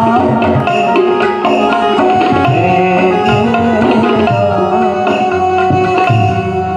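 Devotional music interlude: tabla playing a steady rhythm under a sustained melodic instrument.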